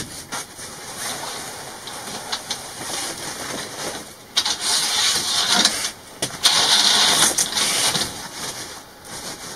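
Cab curtain being handled: fabric rustling and swishing with a few light clicks, loudest in two stretches about halfway through.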